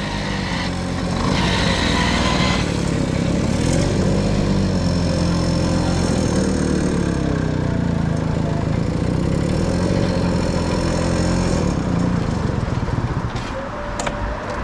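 Small two-stroke moped engines on Tomos A3s running as they ride slowly along, the pitch wavering up and down with the throttle. The engine sound eases off and drops lower near the end.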